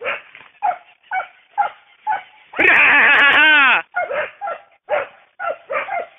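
Big-game hunting dogs barking steadily, about two barks a second, with one long, loud howling bay in the middle.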